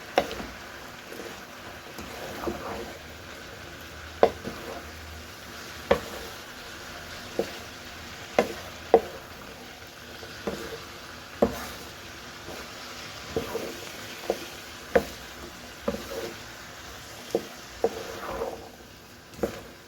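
Vegetables frying in a pan and being stirred: a steady low sizzle, with sharp knocks of the stirring utensil against the pan about once a second.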